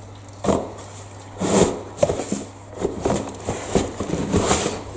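Handling of a corrugated cardboard box: its flap being pulled open, with irregular rustling and scraping of cardboard and several sharp knocks as stacked wooden slat baskets are slid out of it.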